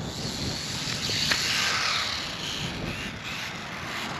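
A WLtoys 1/28-scale micro RC car driving on concrete: its small electric motor whines and its hard tyres and plastic chassis clatter on the surface, getting louder from about one to two seconds in as it passes close, with a sharp click partway through.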